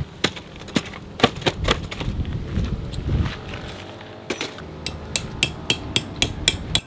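Sharp knocks and clicks from camping gear being handled: a folding camp chair and a tent groundsheet. A few scattered knocks give way, a little past halfway, to a regular tapping at about three to four a second.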